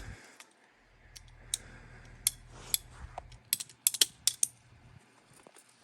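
A run of sharp mechanical clicks and ticks, irregular and coming thickest just before the end, like a small ratcheting hand tool being worked, over a low hum that stops near the end.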